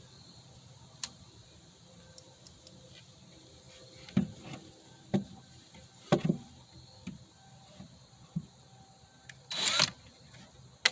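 Scattered light knocks and clicks of wood and hand tools being handled on a workbench, with one short scraping sweep near the end.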